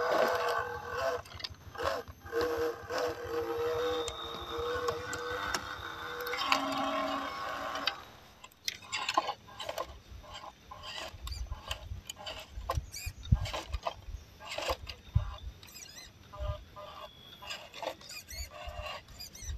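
Small electric motor and gears of an RC crawler whining steadily while it climbs over rocks, stopping about eight seconds in. After that come scattered sharp clicks and low knocks.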